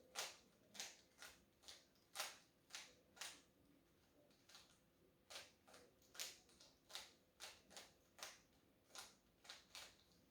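Rubik's cube being turned by hand: a string of quiet plastic clicks, roughly two a second, with a pause of about two seconds partway through.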